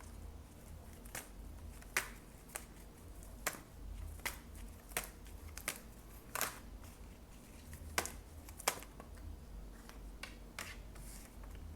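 Tarot cards being handled: a string of short, sharp card clicks and snaps at uneven intervals, about one a second, over a low steady hum.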